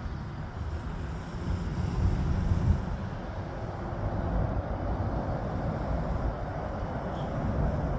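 Business jet's engines at takeoff thrust, a steady distant jet noise with a low rumble that grows somewhat louder in the second half.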